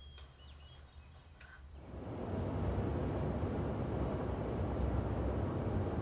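Quiet room tone with a few faint high chirps, then about two seconds in a steady rumble of road and engine noise heard from inside a moving car's cabin.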